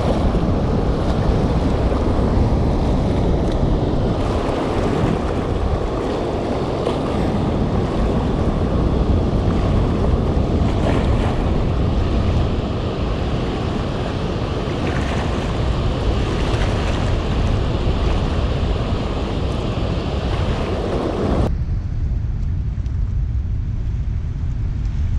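Steady rush of whitewater pouring out of a dam's spillway, with wind buffeting the microphone. About 21 seconds in, the sound turns abruptly duller.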